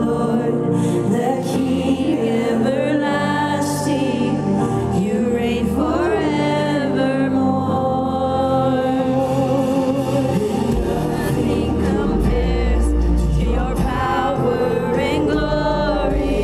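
Live contemporary worship music from a band and singers on stage, with a deep bass coming in about two thirds of the way through.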